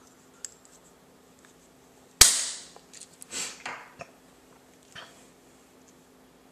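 A single sharp plastic snap about two seconds in, then brief rustling and light clicks as blood glucose testing supplies (strip container and meter) are handled while a test strip is readied.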